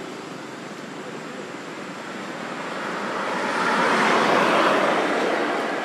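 Pickup truck passing on the road, its tyre and engine noise swelling to a peak about four seconds in and then fading away.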